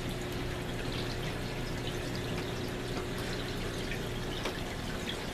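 Running aquarium filtration: water trickling and splashing with scattered drips over a steady low hum.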